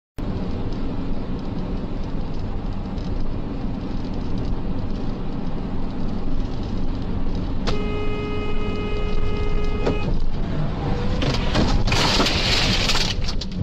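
Steady road and engine noise heard inside a moving car. A car horn sounds one steady note for about two seconds, and shortly after comes a car crash: a run of sharp impacts and a loud noisy burst as debris flies.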